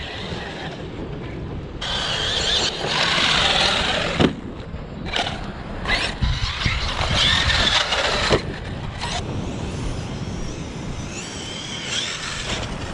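Arrma Kraton 6S RC truck's brushless motor whining up and down in bursts of acceleration, with tyre noise and two sharp knocks, about four and eight seconds in. Steady wind on the microphone runs underneath.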